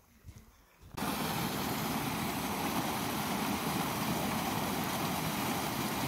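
Small stream cascading over rocks: a loud, steady rush of water that starts abruptly about a second in.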